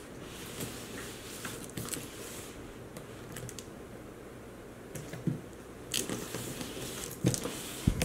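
Large cardboard box being handled and turned on a wooden tabletop: scattered light scrapes, rustles and clicks, with a couple of louder knocks near the end as it is set down.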